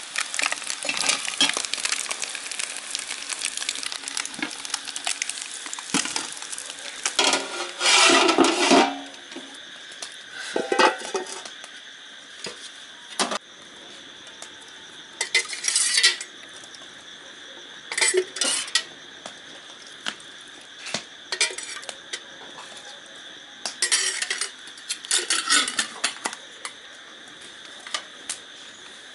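Metal utensils clinking and scraping against aluminium cooking pots. There is dense clatter for the first several seconds, with a louder burst about eight seconds in, then scattered single clinks.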